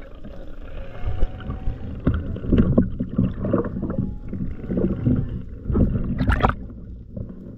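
Muffled underwater water noise and bubbling, heard through a speargun-mounted camera's housing as a spearfisher swims up toward the surface. There is a short, brighter rush of water about six seconds in.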